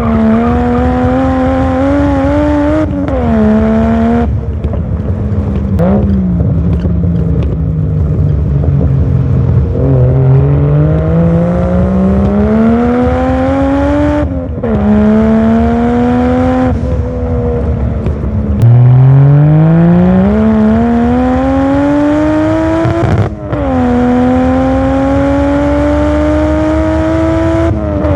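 Toyota 1JZ turbo inline-six in a Supra MK2, heard through its new Magnaflow exhaust, pulling through the gears on a drive. The engine note climbs and drops several times, with short breaks at the gear changes.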